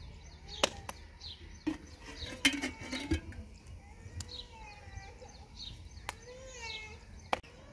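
Hands slapping and patting a ball of roti dough between the palms to flatten it: sharp slaps every second or so, with a quick run of them about two and a half seconds in. Birds chirp and call in the background.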